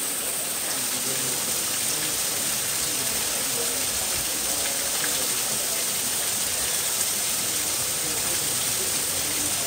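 Steady rushing noise like running water, with faint voices murmuring underneath.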